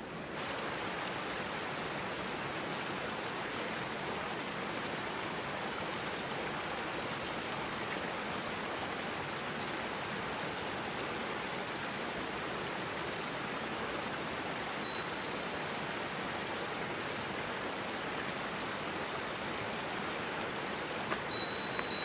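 Mountain stream water rushing steadily, an even hiss of flowing water. Near the end a few high ringing tones come in over it.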